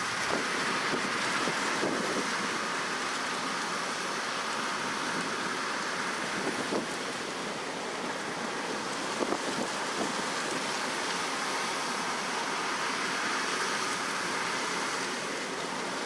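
John Deere 9650 STS combine running steadily while shelling corn, heard as an even rushing noise with a few faint knocks.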